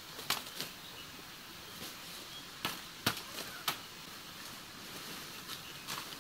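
About eight sharp clicks and knocks at irregular intervals, the loudest about three seconds in, over a steady faint hiss.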